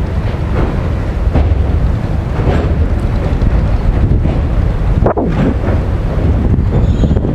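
Wind buffeting the microphone at an open carriage door over the steady rumble of a train running across a sea bridge, with a sharper knock about five seconds in.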